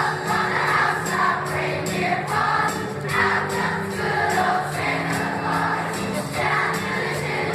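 Large school choir singing to instrumental accompaniment, with a steady percussion beat.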